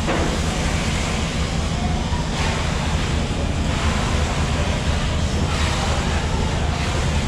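Steady low rumble and hiss of fish-market background noise, with no distinct knocks or cuts.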